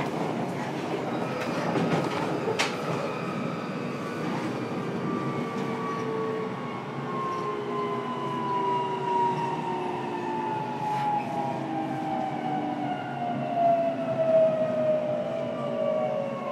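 Running sound inside a JR Kyushu 303 series motor car: the traction motors' whine falls steadily in pitch as the train slows under braking, over the rumble of wheels on rail. A few sharp rail-joint clacks come near the start.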